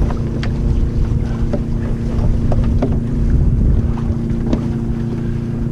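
Wind buffeting the microphone and water rushing along the hulls of a Corsair F-27 trimaran under sail, over a steady low hum, with a few faint clicks.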